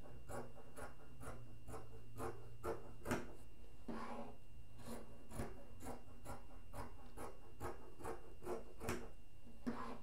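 Scissors cutting through cotton muslin in a steady run of snips, about three a second.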